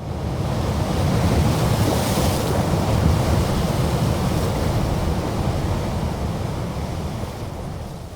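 Strong wind blowing in gusts: a continuous rushing with a deep low rumble, swelling over the first couple of seconds and dying away near the end.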